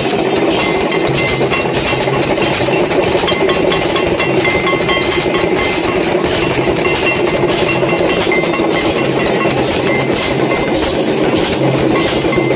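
Temple aarti bells: a brass hand bell ringing over the rapid, unbroken clanging of a metal gong plate struck with a stick.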